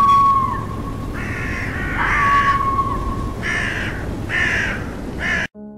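Crows cawing, about six harsh calls in a row over a steady low background; the sound cuts off abruptly near the end.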